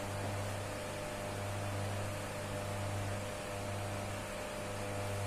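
Steady low electrical hum with a faint higher tone, over an even hiss of background noise.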